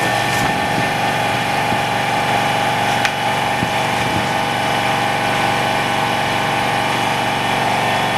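Bubble removal machine for phone screens running, its pump humming steadily. A faint tick about three seconds in.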